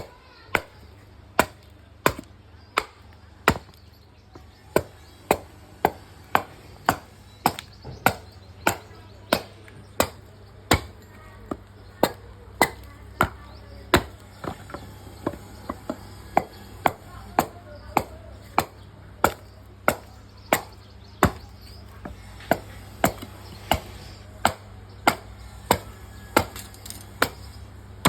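Steady, regular chopping strikes of a blade into wood, about three every two seconds, as a cricket bat blank is shaped by hand. A low steady hum runs underneath.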